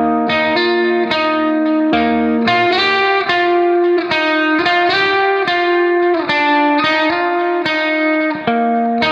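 Background music: a plucked guitar playing a melody, single notes struck one after another and left to ring.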